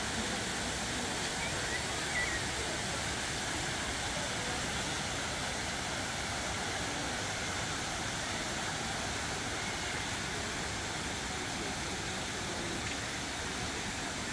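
Fountain water falling and splashing in a steady, even rush.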